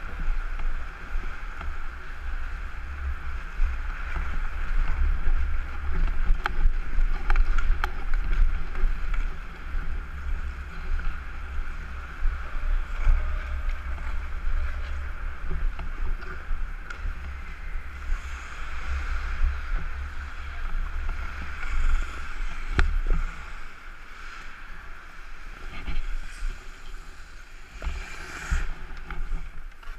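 Wind buffeting the microphone of a helmet-mounted action camera as the wearer skates, with the hiss of skate blades on ice. It eases off in the last few seconds as the skating stops, with one sharp click about two-thirds of the way through.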